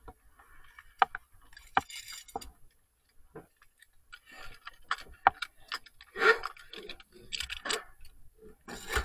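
A rope-access worker's metal gear clinks and jangles in irregular sharp clicks, mixed with bursts of scraping and rustling as he moves on the ropes against the metal roof.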